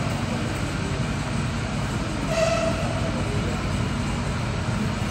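Steady low rumble of jet aircraft engines, with a brief horn-like tone about two and a half seconds in.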